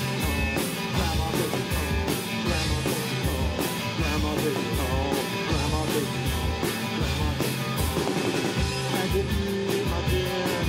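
Live punk rock band playing: electric guitar over a drum kit keeping a steady beat.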